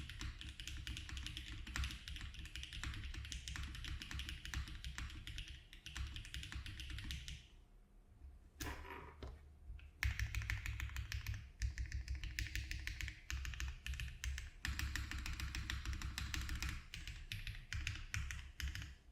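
Fast, continuous typing on a Mode Tempo mechanical keyboard with HMX Macchiato switches. The typing pauses for about two seconds partway through, then resumes a little louder.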